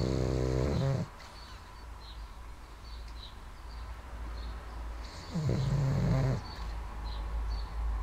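Pug snoring in its sleep: two loud snores, each about a second long, one at the start and one about five seconds later, with quieter breathing between.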